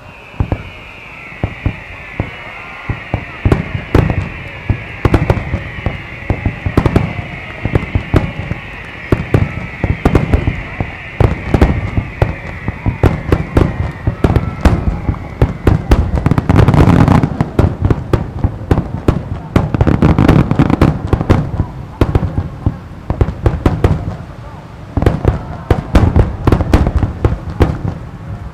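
A starmine barrage of Japanese aerial fireworks: a rapid, continuous run of shell bursts and sharp bangs. A high whistle glides slowly downward through the first half, and the bursts pile up into a dense, heavy volley about halfway through.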